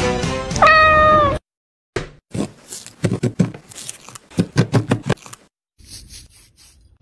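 A cat's meow, one held call just under a second long. After a short pause comes a run of soft knocks and squishes as a fork is pressed into a raw chicken breast on a wooden board, then a faint crackle near the end.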